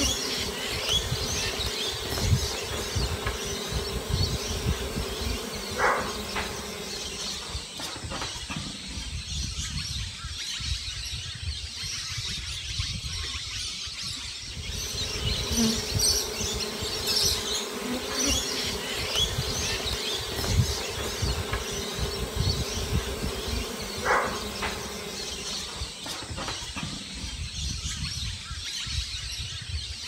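Honeybees buzzing around a hive box entrance, a steady hum that fades and returns, with birds chirping in the background.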